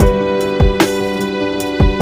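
Background music: sustained instrumental tones over a steady thumping beat.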